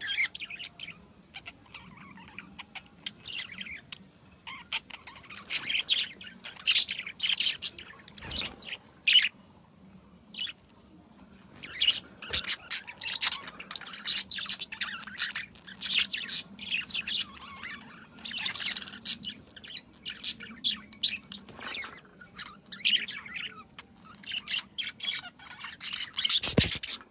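Small birds chirping and tweeting in many short, quick calls that come and go in clusters, with a brief thump near the end.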